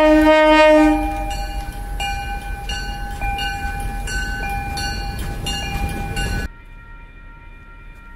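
A train horn sounds one loud chord for about the first second as the train approaches, then the train runs past with regular strikes about twice a second over a steady ringing. About six and a half seconds in the sound cuts off abruptly to a much quieter stretch with only faint steady tones.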